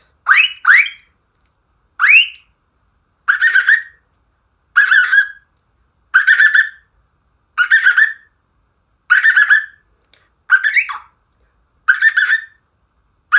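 A mimicry artist's voice imitating a car's remote lock/unlock chirps: three quick rising chirps. Then comes a reverse-gear warning beeper, a short beep repeated steadily about every second and a half.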